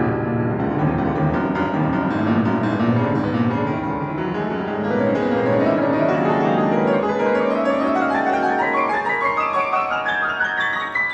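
Piano playing: dense low-register notes, then rapid rising runs that climb steadily into the top register over the second half.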